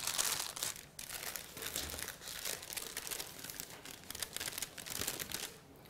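Sterile supply packaging being opened and handled, crinkling and rustling in short, irregular crackles.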